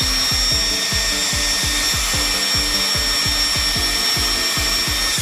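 Small electric cooling fan running with a steady high-pitched motor whine, cooling a freshly desoldered BGA chip. Background music with a steady thumping beat, about two and a half beats a second, plays under it.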